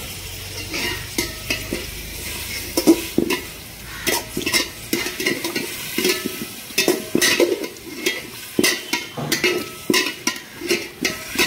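A steel spatula scraping and knocking against an aluminium cooking pot as raw mutton is stirred in hot oil, over a frying sizzle. The strokes are irregular and come more often in the second half.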